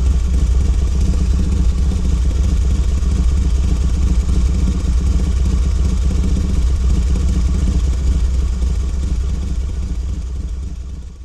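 A loud, steady low mechanical rumble that fades out near the end.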